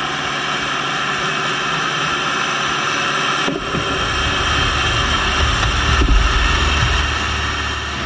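Eastwind mini bulldozer pushing soil and rock: its engine running under load as it comes closer, with a deep rumble that grows louder from about halfway and is loudest about six seconds in.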